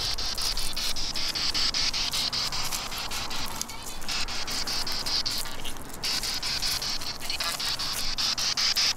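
P-SB7 spirit box sweeping through radio stations: a steady hiss of static chopped into rapid even pulses, several a second, with two brief dropouts.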